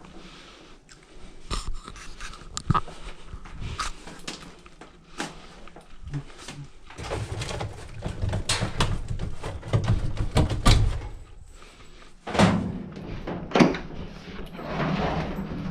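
Irregular knocks, clunks and scraping from a clothes dryer's cabinet and parts being handled and moved during repair, with a few heavier thumps in the second half.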